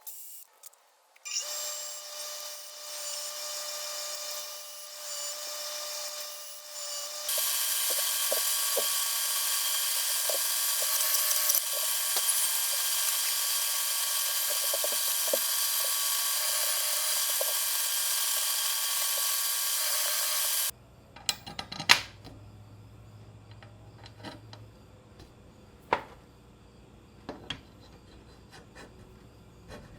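A shop power tool runs, then grows louder and steadier for about thirteen seconds as it works under load, stopping abruptly about two-thirds of the way through. Light clicks and knocks of handled parts follow.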